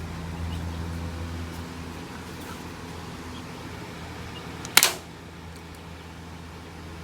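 A single sharp shot from a toy gun, once, about five seconds in, over a steady low hum.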